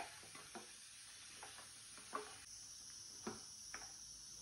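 Wooden spatula stirring chopped tomatoes in a nonstick kadai as they sauté in oil: faint soft scrapes and light knocks against the pan, about half a dozen, over a low hiss. A steady high-pitched hiss joins about halfway through.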